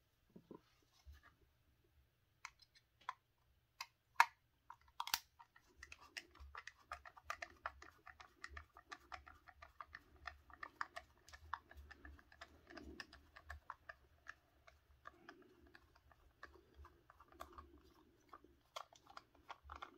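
A 2 mm hex driver unscrewing a long bolt from the transmission case: a few sharp clicks at first, then from about six seconds in a faint, quick run of small clicks and scraping as the bolt turns out.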